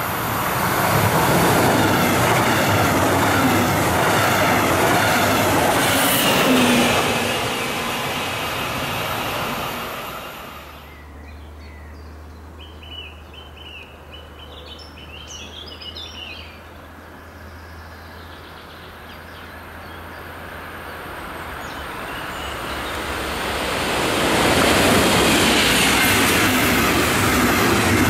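Metronom double-deck push-pull train passing at speed, a loud rush of wheels on the rails that fades after about ten seconds. After a sudden cut, birds chirp over a low hum, then a second double-deck train is heard approaching, growing louder until it passes near the end.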